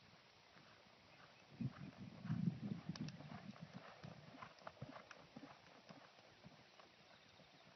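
Hoofbeats of a reining horse going past. The run of hoof strikes comes in about a second and a half in, is loudest around two and a half seconds, and fades away by about six seconds.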